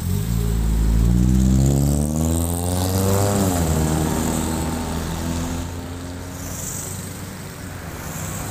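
Honda Accord 2.3-litre four-cylinder, fitted with a 4-2-1 header and a muffler without resonator, accelerating away past: the exhaust note rises in pitch, drops at a gear change about three seconds in, then runs steadier and fades as the car drives off.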